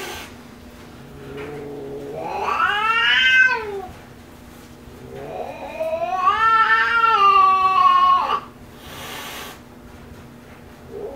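Tabby cat yowling in threat: two long, drawn-out calls, each rising and then falling in pitch, then a short hiss. It is the growling and yowling of a female cat, spayed, who turns aggressive when someone outside the family tries to pet her.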